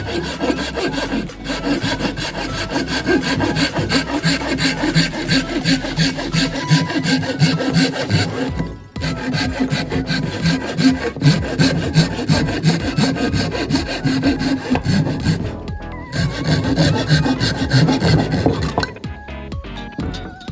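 A saw cutting through bamboo in repeated back-and-forth strokes, with a few brief breaks between stretches of cutting.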